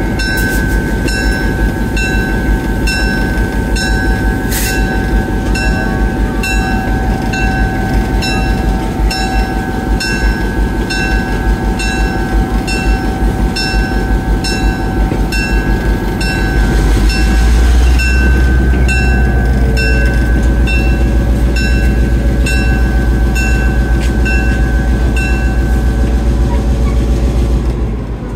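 Moving excursion train hauled by an EMD GP7 diesel locomotive: a heavy low engine rumble that gets louder about two-thirds of the way through, with a steady whine and regular light clicking over it.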